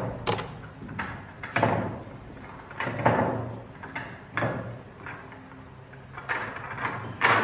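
Billiard balls and cue knocking on the table: about six sharp clacks spread a second or so apart, each with a short ringing tail.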